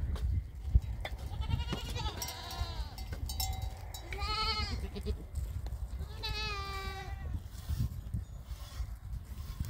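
Goats bleating: three wavering calls, about two, four and six seconds in, over a low steady rumble.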